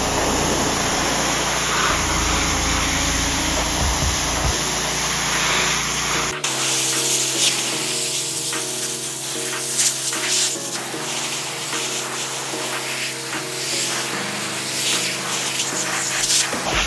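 Aerosol brake cleaner spraying in a steady hiss, then an abrupt cut about six seconds in to dense crackling noise, with background music underneath.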